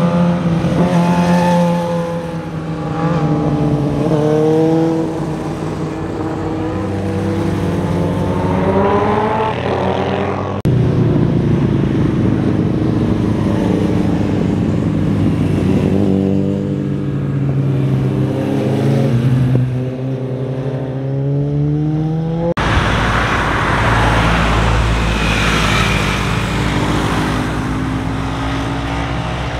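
Sport motorcycle engines revving through tight bends, their pitch rising and falling again and again as the bikes pass. In the last few seconds a rougher, noisier traffic rumble comes in as a car follows a motorcycle through the curve.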